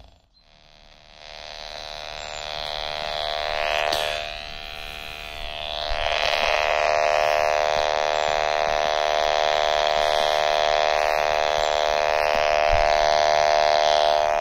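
AM radio tuned near 900 kHz, its speaker picking up the robotic lawn mower's boundary-wire signal as a steady electrical buzz. The buzz swells as the radio nears the wire, dips briefly around the middle, then holds loud and steady. A strong buzz means the signal is getting through the wire at that point.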